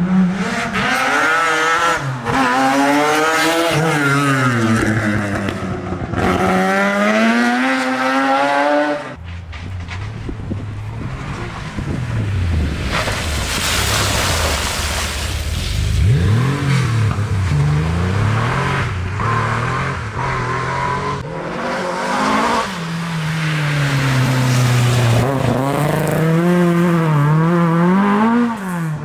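Historic rally cars driven flat out one after another, engines revving hard, the pitch climbing and dropping with each gear change and lift-off. A stretch of loud rushing tyre and spray noise comes midway.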